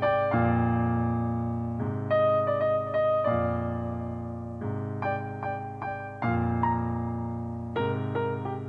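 Slow solo piano music: chords struck about every one and a half to two seconds and left to ring out and fade.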